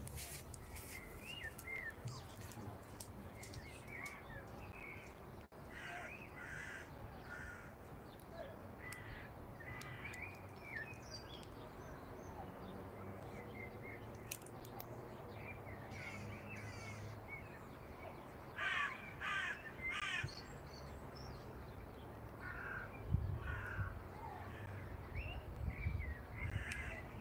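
Crows cawing on and off, with a louder run of calls about two-thirds of the way through, among other short bird calls. A low rumble comes in near the end.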